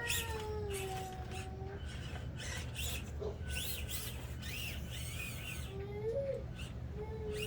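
A young child's voice in the background: a long falling whine at the start, then shorter rising-and-falling cries near the end, with small high chirping sounds and scattered light clicks in between.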